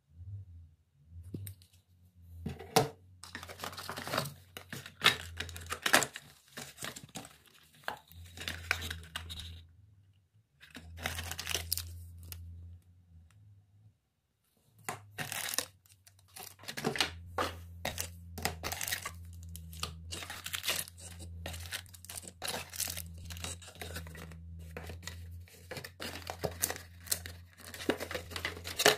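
Clear plastic packaging bags crinkling and rustling as they are handled, in irregular bursts with short pauses and sharp crackles, over a steady low hum.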